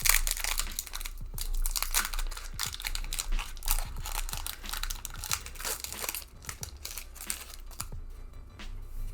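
Foil wrapper of a Pokémon card booster pack crinkling and tearing as it is handled and opened, the crackling dense for about six seconds and then sparser. Background music underneath.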